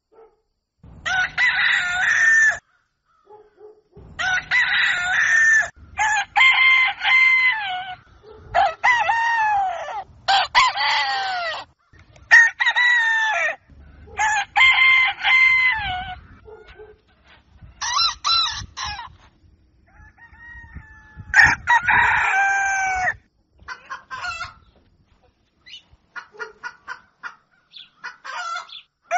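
Roosters crowing loudly, one long crow after another, about ten in all, some nearly back to back. Near the end come short, choppy clucking calls.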